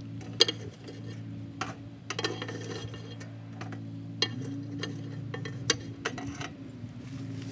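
Metal tongs clinking against a Weber kettle's steel cooking grate while charcoal briquettes are dropped through onto the coals, about six sharp clinks with the loudest about half a second in. This is the fire being refuelled with unlit briquettes because the smoking temperature has fallen. A steady low hum runs underneath.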